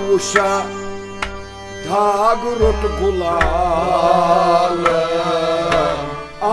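Kashmiri Sufi folk ensemble playing. A wavering, vibrato-laden melody line runs over a steady drone, with sharp plucked string notes from rabab-type lutes and deep percussion strokes.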